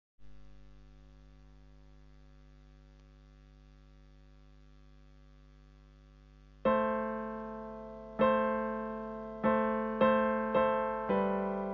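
Yamaha digital piano: a soft chord held steadily, then from about six and a half seconds in, louder chords struck one after another, each ringing and fading, coming closer together toward the end. A faint low hum sits underneath.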